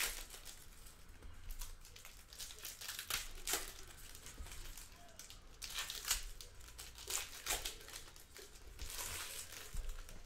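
Foil trading-card pack wrappers crinkling and tearing as they are opened by hand, in irregular bunches of crackles.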